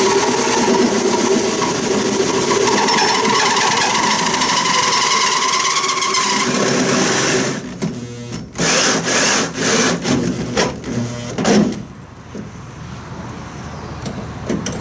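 Power drill with a 2-inch hole saw cutting through the van's sheet-metal wall, running steadily for about seven seconds, then in a handful of short bursts as the cut is finished, stopping near twelve seconds.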